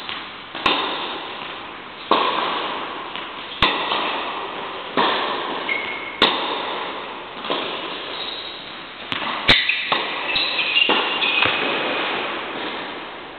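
Tennis balls struck by rackets in a rally, a sharp crack about every second and a half, each ringing on in the hall's echo. A couple of short, high shoe squeaks on the court come between strokes.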